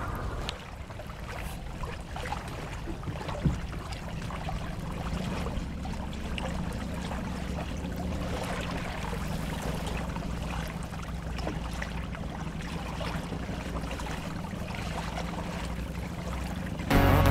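Lake water trickling and splashing along the hull of a small sailboat under way, over a steady low rumble. Music comes in at the very end.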